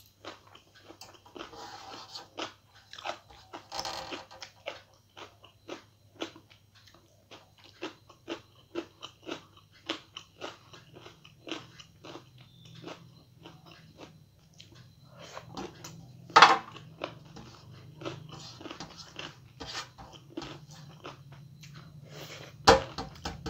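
Close-miked chewing and mouth sounds of a person eating a rice-and-curry meal by hand: a quick run of wet clicks and crunches, about two to three a second. Two sharper, louder snaps come about two-thirds of the way in and again near the end.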